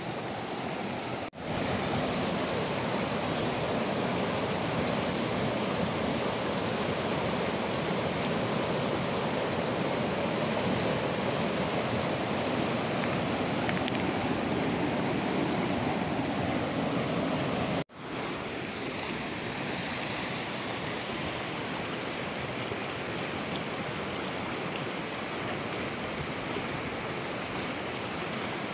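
Fast mountain river rushing over rocks and rapids, a steady wash of water noise that drops out suddenly twice, about a second in and again past halfway.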